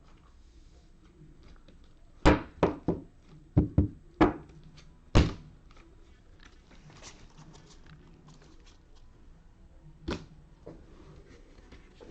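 A quick run of sharp thunks and taps, about seven in three seconds, then one more near the end, with faint handling noise between: trading cards and packs being knocked and set down on a tabletop.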